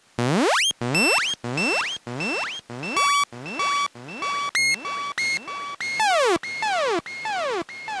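A rapid run of short synthesizer stings, about three a second, each a bright pitched tone with overtones that is cut off sharply before the next. The early ones sweep up in pitch and settle on a held note; from about six seconds in, the notes fall in pitch instead.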